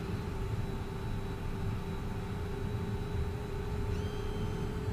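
Steady cockpit hum of a Cessna Citation M2 taxiing with its twin Williams FJ44 turbofans near idle. About four seconds in, a faint higher whine slides up and then holds.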